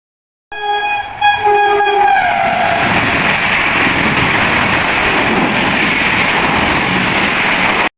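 Train horn sounding two blasts, the second sliding down in pitch, followed by the loud steady rush of a train going by. The sound cuts off suddenly just before the end.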